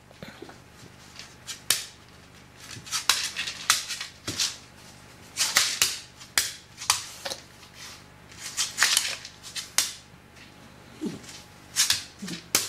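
Sharp clicks and taps at irregular intervals, some in quick runs: a dog's claws tapping and scraping on a laminate floor as it shifts about, impatient for its food. Two short low voice-like sounds come near the end.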